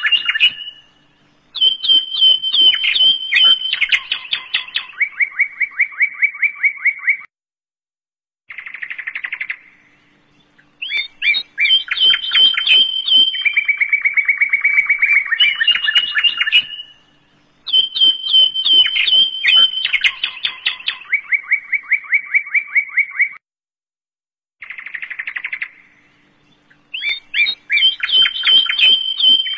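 Birdsong: bright chirps and fast trills in phrases a few seconds long, separated by short gaps. The same sequence repeats about every sixteen seconds, as a looped recording does.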